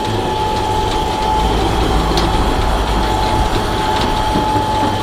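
Steady mechanical rumble and rattle with a constant mid-pitched hum.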